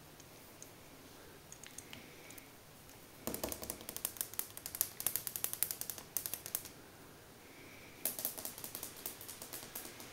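Two bursts of rapid, light clicks and taps, the first starting about three seconds in and lasting some three seconds, the second near the end.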